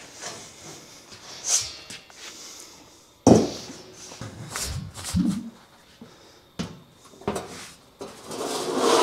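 A thin 14-gauge steel sheet being pulled from a stack and handled: metal scraping and flexing, a loud bang a little over three seconds in, a couple of sharper knocks later, then a long scrape near the end as the sheet slides across the plasma table's slats.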